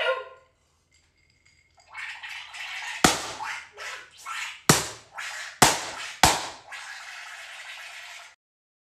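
Water running with a steady hiss, broken by four sharp smacks, as something is dunked and struck in the water. It starts about two seconds in and cuts off suddenly near the end.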